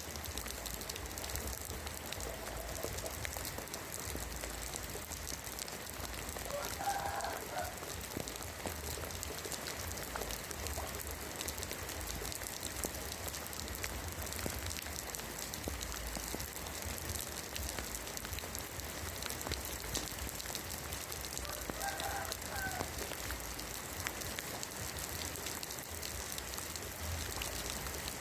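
Rain falling on roof tiles: a steady hiss full of small ticks. A short bird call sounds twice, about fifteen seconds apart.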